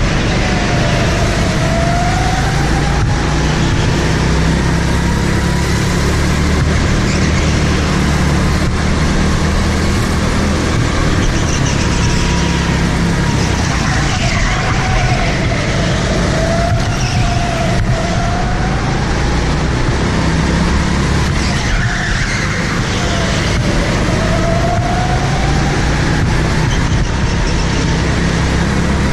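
Go-kart engine running hard on an indoor circuit, its pitch dropping several times into corners and climbing again as it accelerates out.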